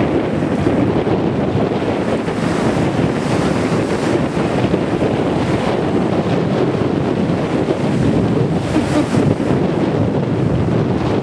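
Strong wind blowing across the microphone over the steady rush of ocean surf, with a slight swell a couple of times as waves break.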